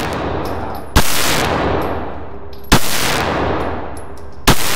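Three shots from a Glock 26 Gen 3 9mm pistol, fired at an even, unhurried pace a little under two seconds apart. Each shot is sharp and loud, with a long echo dying away in the concrete lane of an indoor range.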